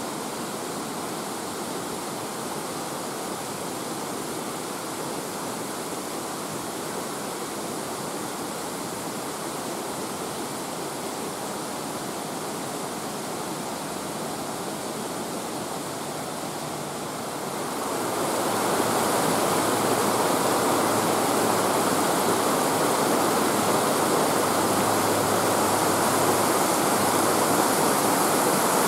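Mountain stream rushing, a steady watery hiss that gets louder about two-thirds of the way through.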